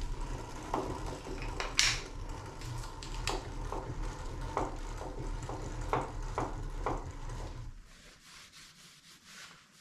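A kerosene-soaked rag rubbing over the metal of a machine tool, with scattered light knocks and clicks as it is worked into the parts. A low hum runs under it and stops about eight seconds in.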